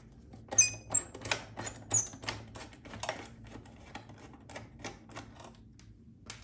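Quick metallic clicks and taps from hand work on the old head unit's mounting hardware as it is taken off, loudest in the first couple of seconds and thinning out toward the end.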